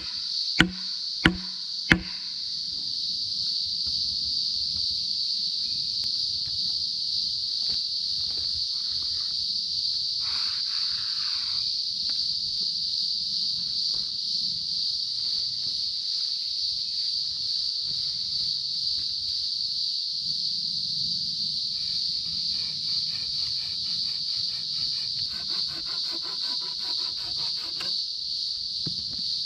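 A steady, high-pitched insect chorus, with four sharp knocks about two-thirds of a second apart in the first two seconds.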